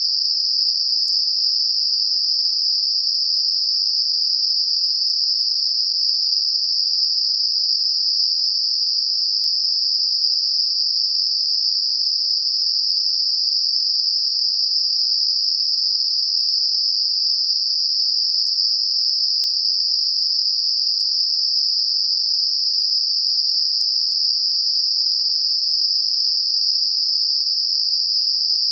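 Computer-generated Gaussian narrow-band noise centred on about 5 kHz: a steady, unchanging high-pitched hiss, made to mask high-frequency tinnitus.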